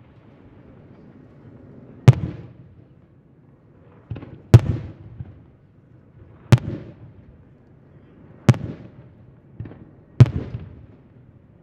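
Aerial firework shells bursting one at a time, about every two seconds: five loud sharp bangs and two fainter ones, each followed by a rolling rumble of echo.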